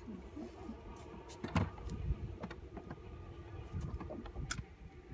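Scattered knocks and clicks in a small boat as someone moves about by the seat, over a steady low hum. The loudest knock comes about a second and a half in.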